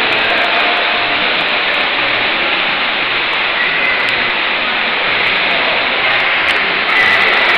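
Continuous splashing of several swimmers' arm strokes and kicks in a pool. It grows a little louder near the end.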